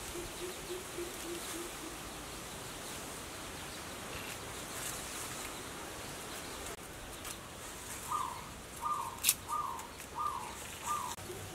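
Birds calling outdoors against a steady background hiss. A low note repeats quickly at the start. Near the end, a series of five short, falling calls comes about once every two-thirds of a second. A single sharp click sounds about nine seconds in.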